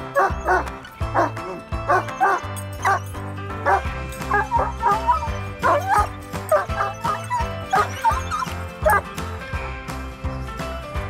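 A German Shepherd barking and yelping in quick succession, with whining calls that bend up and down, the excited noise of a dog greeting its returning owner. Background music plays under it.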